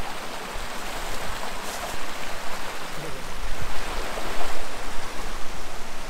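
Shallow river running over rocks: a steady rush of water that grows a little louder about two seconds in.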